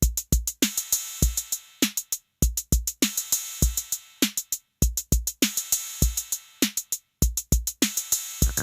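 Electronic music: a drum-machine beat of deep kick drums, snares and hi-hats in a steady pattern, about three kicks every two seconds.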